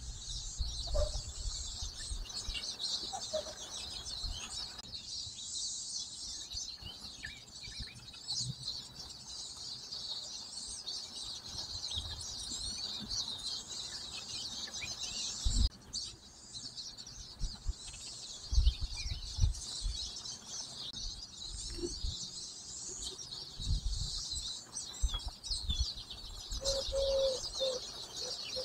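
A dense chorus of many small birds chirping, high and continuous, with scattered low bumps underneath.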